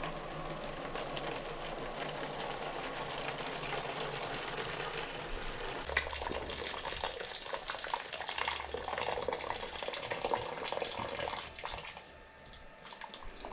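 Hot water poured from a kettle into a tub: a steady pouring rush that turns more uneven and splashy about halfway through, then dies down near the end.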